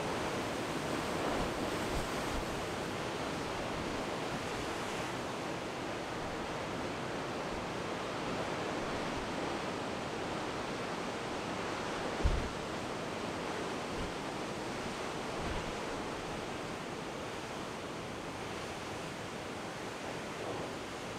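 Heavy storm surf of about 20-foot seas breaking steadily onto a rocky shore, a continuous roar of white water. A single short, low thump about twelve seconds in.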